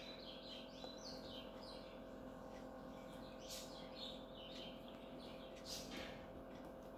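Faint scratching of a pencil making short strokes on paper, over a steady low hum.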